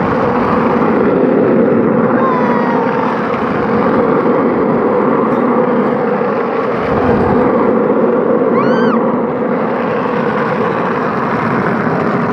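Hard wheels of a low ride-on cart rolling fast down an asphalt street: a loud, steady rolling rumble. A brief high cry rises and falls about two seconds in and again near nine seconds.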